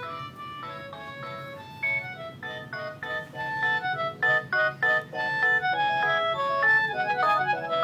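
Mobile phone ringtone: a quick electronic melody of short notes with a fast run near the end, getting louder about two seconds in. It plays because the phone is ringing with an incoming call.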